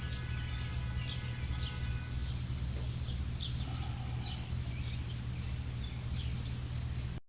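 Small birds chirping in short, repeated calls over a steady low hum. The sound cuts off abruptly near the end.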